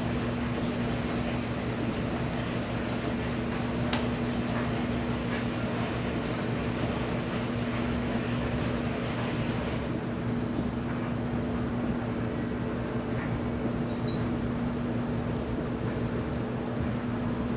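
Steady machine hum with a low droning tone and an even background hiss, unchanged throughout; a faint click about four seconds in.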